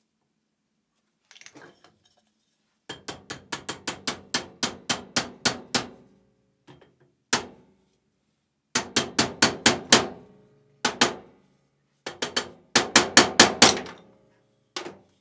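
Hammer blows in quick runs, about four strikes a second, each with a short ringing tail, separated by short pauses.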